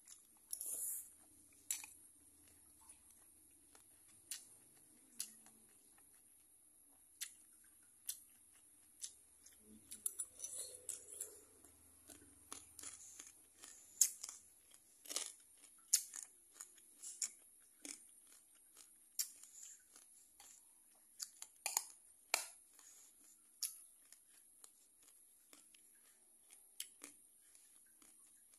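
Close-up eating: crunchy bites and chewing of raw cucumber with rice, with scattered sharp clicks of a metal spoon against the bowl, over a steady high hiss.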